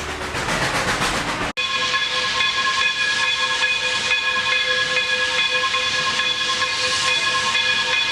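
A rushing hiss for the first second and a half, then a steam locomotive whistle blowing one long steady blast of several pitches at once over hissing steam.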